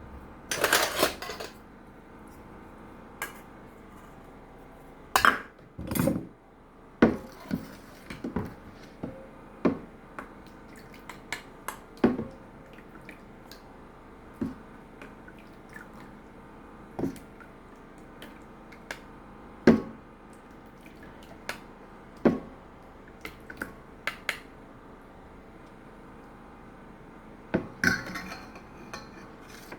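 Plates and utensils clinking and knocking together at irregular intervals, a scattered kitchen clatter with a few louder knocks among many light clinks.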